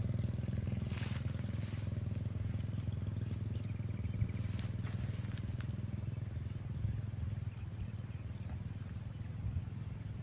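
A small engine running steadily, a constant low drone.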